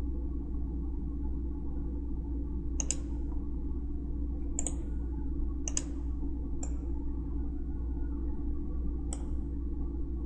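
Computer mouse clicking five times at uneven intervals, over a steady low hum.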